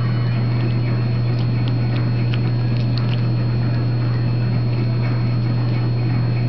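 A dog chewing a stalk of raw broccoli: scattered small crunches and clicks over a loud, steady low hum.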